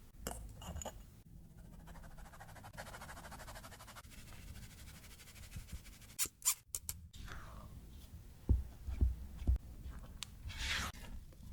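Cake batter being mixed with kitchen utensils in a bowl: a soft rustling stretch, a few sharp clicks, some low knocks against the bowl, and a short scrape near the end.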